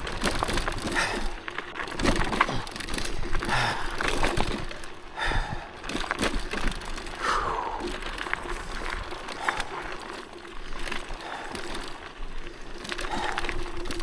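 YUME Hawk two-wheel-drive electric off-road scooter climbing a rocky hill: tyres crunching and clattering over loose rock, with irregular knocks and rattles and a faint steady whine underneath.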